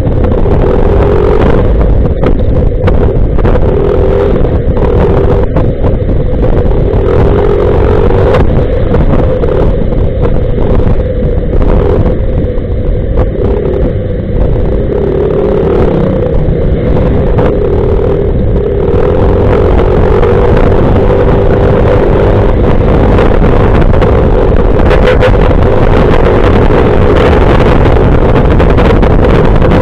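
Motorcycle riding on a wet road: heavy wind rumble on the bike-mounted camera's microphone, with the motorcycle's engine running steadily underneath, its pitch wavering a little.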